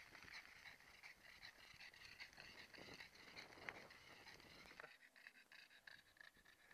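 Faint sound of a mountain bike rolling down a dirt trail, its knobby tyres crunching and rattling over gravel; it drops off about five seconds in.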